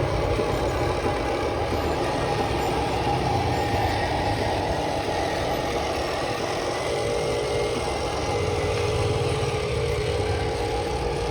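Radio-controlled model trucks and construction machines running, a steady engine-like hum with no sudden changes.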